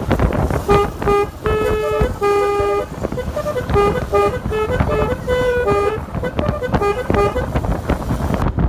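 Basuri telolet horn on a motorcycle playing a tune: a run of short and held horn notes stepping between a few pitches, with two longer held notes in the first three seconds and quicker notes after. Steady wind noise on the microphone runs underneath.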